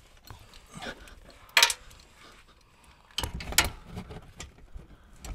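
Ratchet and socket clinking and clicking on a 10 mm nut on the exhaust mounting as it is fitted and worked: a sharp metallic click about a second and a half in, then a short cluster of clicks a little past halfway.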